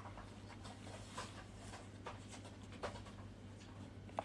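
Faint scattered taps and rustles over a low steady hum.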